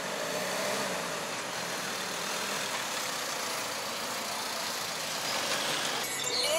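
A van's engine idling steadily under an even hiss of outdoor noise.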